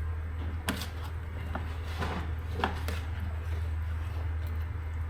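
Kitchen utensils knocking lightly against cookware about five times in the first three seconds, over a steady low hum.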